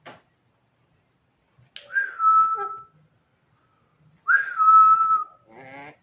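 Javan myna whistling twice, each clear whistle about a second long, starting a little higher and settling onto a steady note. A short, rougher call follows near the end.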